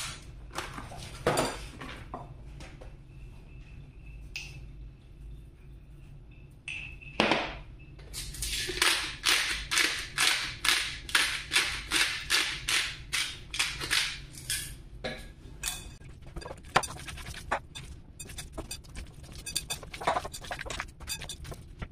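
A hand-twisted spice grinder being turned over a bowl of minced meat, a regular run of sharp grinding strokes about two a second for several seconds, after a few scattered knocks. Then hands kneading the meat in a glass bowl, with irregular soft squelches and taps.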